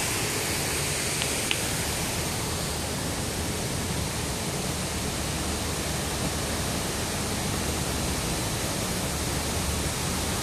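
Fountain water jets splashing into their pool: a steady rushing hiss of falling water.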